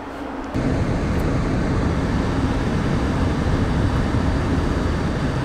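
Steady road and engine noise inside the cab of a VW T4 Syncro camper van on the move, an even rushing sound over a low rumble, starting abruptly about half a second in.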